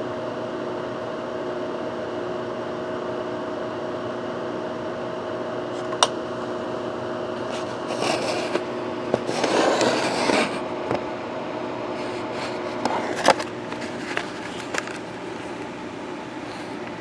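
Steady machine hum of a room fan or air-conditioning unit, with a few sharp clicks and a stretch of scraping and rustling handling noise about eight to ten seconds in. The hum drops a little near the end.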